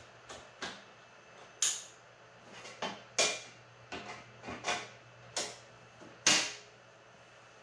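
About a dozen irregular sharp knocks and clicks over a faint steady low hum; the loudest fall a second and a half, three seconds and six seconds in.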